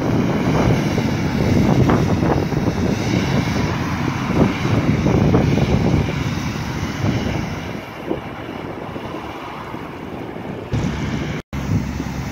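Tractor-mounted rotary street broom sweeping dry pavement and kicking up dust, its diesel engine running under the brushing, with wind buffeting the microphone. After a cut near the end, a truck's engine runs steadily.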